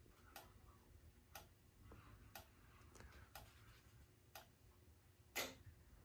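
Faint clicks about once a second from Simplex TrueAlert strobes flashing in sync, with the horns silenced; one click near the end is louder.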